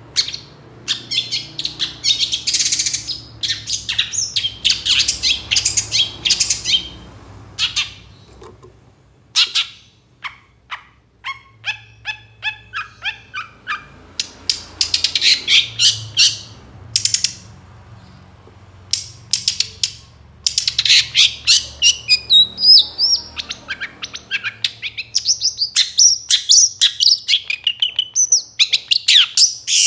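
Long-tailed shrike, moulting, singing vigorously: rapid runs of harsh chattering notes broken by short pauses, then rising and falling whistled phrases in the second half.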